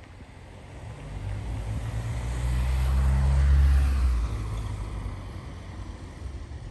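An engine-driven vehicle passes close by. Its low engine note and noise build over about two seconds, peak three to four seconds in, then fade away.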